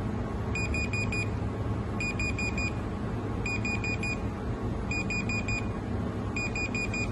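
Digital thermometer's alarm beeping in repeated groups of four short, high beeps, about one group every second and a half, over a steady low hum.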